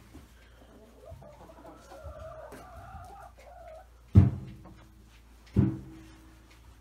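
Chicken vocalising: a soft, wavering trilling call lasting about three seconds, then two loud, short, low clucks about a second and a half apart.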